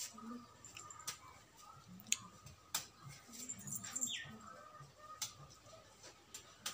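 A knife chopping hands of bananas off an upright banana bunch: about six sharp, separate cuts and snaps, irregularly spaced.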